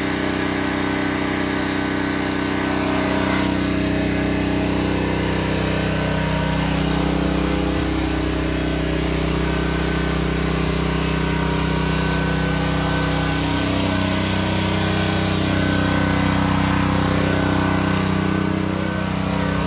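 Small gasoline engine of a pressure washer running steadily, its pitch holding level with only slight wavers.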